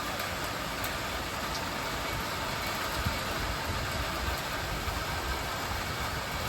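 Steady hiss of rain with a low rumble of vehicle engines underneath.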